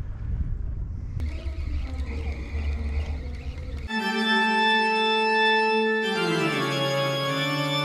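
Low, rumbling wind noise on the microphone for about four seconds. Then a held organ chord, dramatic background music, starts abruptly and slides to a lower chord about two seconds later.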